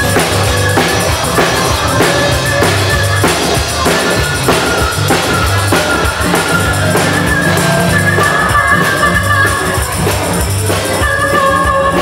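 Harmonica solo played cupped against a handheld microphone, held notes stepping from pitch to pitch, over strummed acoustic guitar and a steady rock drum beat.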